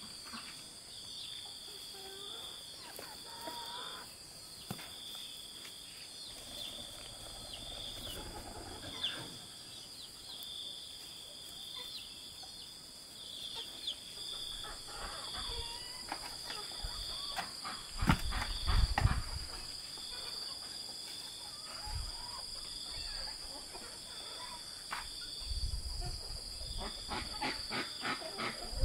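Insects chirping steadily in a high pulse that repeats about once a second, over soft rustling and crumbling of soil as seedlings are planted by hand. A few louder dull thumps come about two-thirds of the way through.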